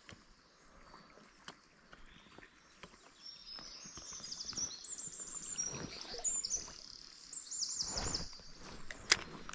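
A small songbird singing repeated high, quickly trilled phrases, starting about three seconds in, over the faint steady wash of a shallow river riffle. A single sharp click near the end.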